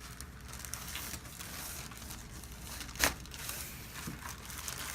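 A single sharp joint crack about three seconds in, the cavitation pop of a chiropractic spinal adjustment, over faint rustling and crinkling.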